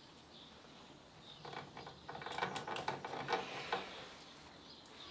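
Crisp clicking and rustling from handling sweet pea plants as their shoots are snapped off and the leaves are brushed. It runs in a dense spell from about a second and a half in to about four seconds in.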